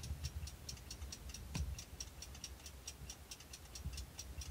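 A mechanical clock ticking quickly and evenly, several ticks a second, with one louder click about a second and a half in.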